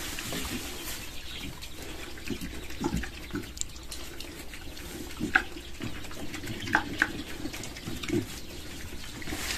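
Two pigs eating fresh grass: steady chewing and munching, with scattered sharp crunches that are loudest a little past halfway.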